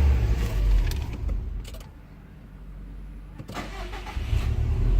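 2017 Subaru WRX STI's engine shutting down, then restarting. Its low running sound dies away about two seconds in. After a couple of clicks, it cranks and catches about four seconds in, settling into a steady idle.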